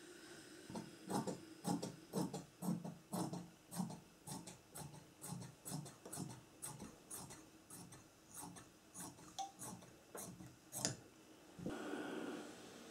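Dressmaking shears snipping through thin dress fabric, a steady run of short crisp cuts about three a second. Near the end the cutting stops and a short steady hiss follows as a steam iron is pressed onto the fabric.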